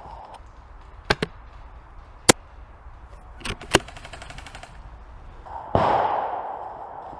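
Airsoft guns firing: sharp cracks, singly and in pairs, spread over several seconds. Near the end comes a louder blast that fades away over a second or so.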